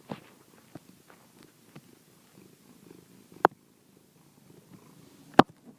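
Domestic cat purring close up, a low rough rumble, with two sharp clicks about two seconds apart in the second half.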